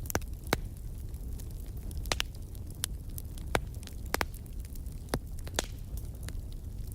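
Wood fire crackling in a fireplace: irregular sharp pops and snaps, a handful of louder ones, over a low steady rumble of the burning fire.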